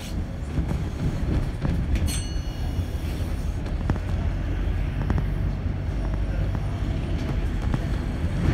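Top-deck interior of a moving double-decker bus: a steady low engine and road rumble with light rattles, and a short high-pitched squeak about two seconds in.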